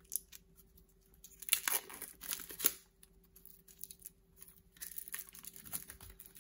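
Plastic shrink wrap being torn and peeled off a deck of game cards, crinkling in two spells of a second or so each.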